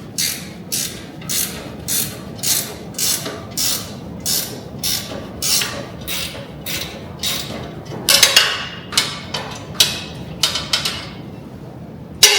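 Hand ratchet wrench tightening a bolt, ratcheting in regular strokes about twice a second, then in quicker, uneven strokes later on, with one sharp metallic knock near the end.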